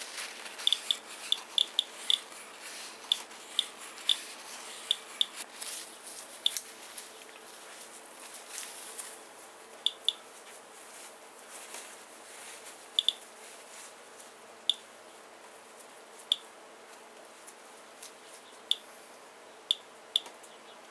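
Geiger counter set to counts per minute, clicking at random intervals, about one short high chirp a second, each a detected count from the rainwater sample. Faint rustling under the clicks in the first few seconds.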